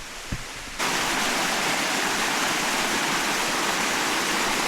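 Waterfall rushing: a loud, steady roar of falling water that cuts in abruptly about a second in.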